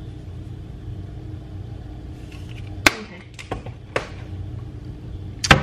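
A few sharp clicks and knocks as a plastic spice shaker is capped and put away in a kitchen cabinet, the loudest knock near the end, over a steady low hum.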